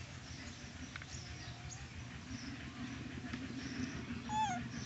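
Young macaque monkey giving one short squeaking call near the end, pitched and falling slightly in pitch. A few faint short chirps come before it.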